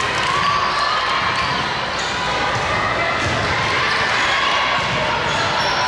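Steady background of a busy volleyball hall with several courts in play: many voices talking and calling, with volleyballs thudding and bouncing, all echoing in the big room.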